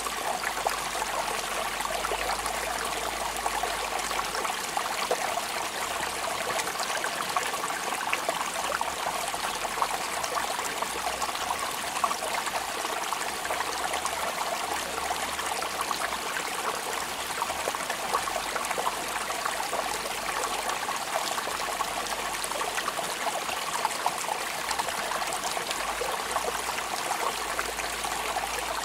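Steady rain falling: an even hiss of water with many small drop ticks scattered through it, unchanging throughout.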